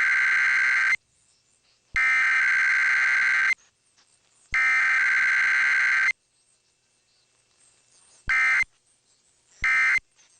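Emergency Alert System SAME data bursts of a Required Weekly Test: three buzzy header bursts of about a second and a half each, half a second apart, the first ending about a second in. After a pause of about two seconds, two short end-of-message bursts follow near the end, with no long alert tone in between.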